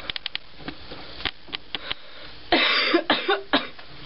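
A person coughing, with one loud cough about two and a half seconds in, and a few short sharp clicks before and after it.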